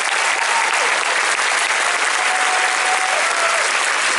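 Large audience applauding, steady and loud.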